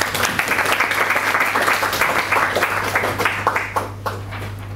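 Audience applauding at the end of a talk, the clapping dying away about four seconds in.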